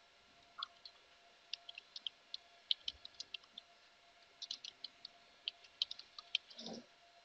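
Computer keyboard keys clicking faintly as a password is typed: two quick runs of keystrokes with a short pause between, and a soft thump near the end.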